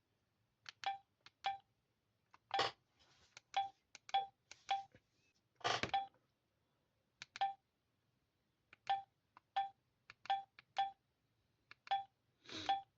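Digma Linx A106 phone giving about fifteen short electronic beeps at uneven intervals, all at the same pitch, like keypad or touch tones. A few duller, noisier taps fall among them.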